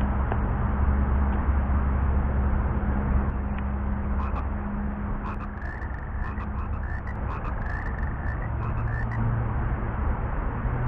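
Frogs calling: a run of quick clicking croaks and short chirps starting a few seconds in and fading out near the end, over a steady low hum.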